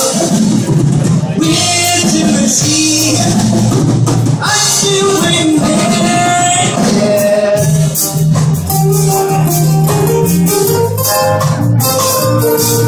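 Live band music: acoustic guitar and ukulele strumming, trombone and saxophone playing melodic lines over drums, with a singer's voice. After about eight seconds a steady bass line and an even shaker-like rhythm take over the accompaniment.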